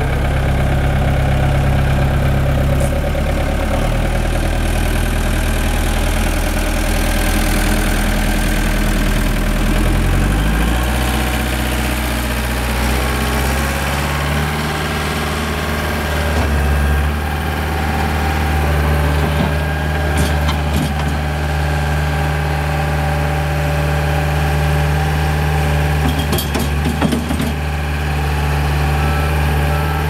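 Bobcat 863 skid steer's diesel engine running just after starting, the throttle raised in steps about 4 and 11 seconds in, then held steady while the machine drives and lifts its loader arms. A few short knocks come in the second half.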